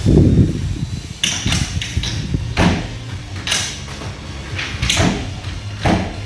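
A window being closed: a dull thump at the start, then a string of sharp clicks and knocks from the frame and handle as it is shut and latched.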